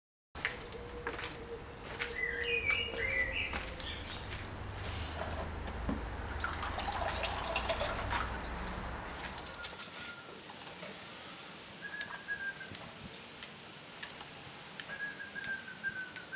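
Water from a garden hose running into a plastic tub, with a low steady rush that stops about two-thirds of the way through. Small birds chirp in short bursts throughout.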